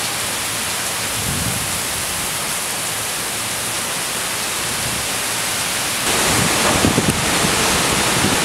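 Heavy rain pouring steadily in a thunderstorm. About six seconds in, the sound jumps louder and low rumbles of thunder or wind surge through.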